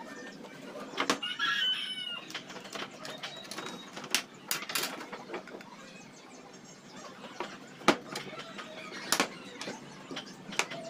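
Scattered clicks and knocks of metal hose fittings being handled on a hard floor, the loudest knock about eight seconds in. A short call is heard in the background about a second and a half in.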